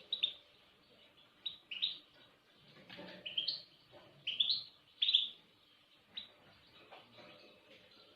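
A small songbird chirping: short, bright chirps in little clusters about every second, growing sparse and faint after about six seconds.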